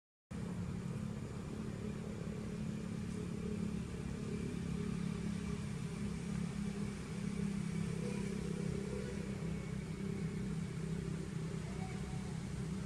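A steady low engine drone runs throughout, with a faint high steady whine above it.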